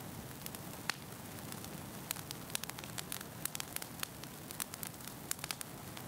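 Steady hiss with irregular sharp crackles and pops, several a second.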